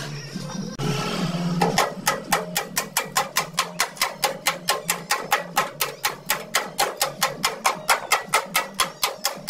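Rapid, even hammering on the steel floor panel of a Vespa scooter body, about five light blows a second, starting about two seconds in after a brief hiss from the gas welding torch.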